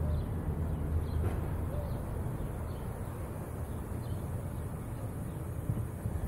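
Ford Mustang convertible's engine running at low revs, with a low rumble of wind on the exposed microphone, as the car rolls to a stop at the curb and idles. The rumble eases over the first couple of seconds and then holds steady.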